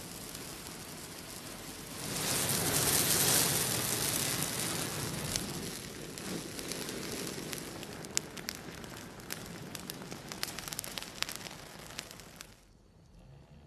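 Open fire burning a dry twiggy branch. A steady rush of flame swells about two seconds in, then sharp crackles and pops come from the burning twigs. The sound drops away suddenly near the end.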